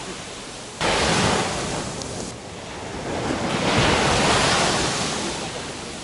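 Small sea waves breaking on a sandy beach and washing up the shore in hissing foam. The sound swells suddenly about a second in, ebbs, and swells again around the middle before easing off.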